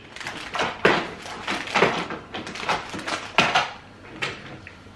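Plastic takeout containers and paper bags being handled on a table: an irregular run of short rustles and clicks.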